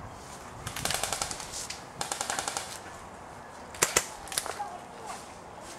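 Airsoft guns firing: two rapid full-auto bursts of about a second each, then two louder single shots in quick succession and a few fainter ones.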